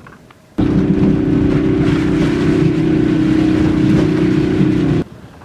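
Motor vehicle engine running at a steady speed with rushing wind noise; it cuts in and out abruptly.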